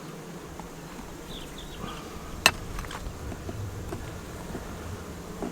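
Honeybees buzzing steadily around an open hive, with a single sharp click about two and a half seconds in.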